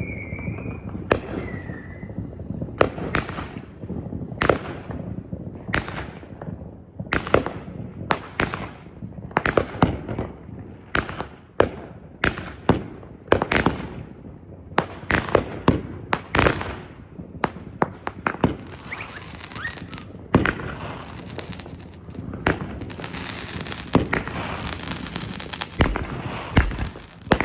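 Consumer firework cakes firing in sequence: a continual run of sharp bangs and pops, about one to two a second, turning in the last third into a dense continuous crackle with louder shots over it.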